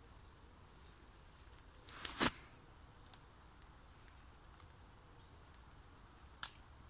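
Quiet forest with a short crackling rustle about two seconds in, dry spruce twigs and branches snapping and brushing as someone moves through them. A few faint ticks follow, and there is one sharp click near the end.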